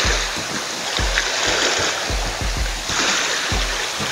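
Small sea waves washing and splashing against a rocky shoreline, swelling and easing, with irregular low rumbles underneath.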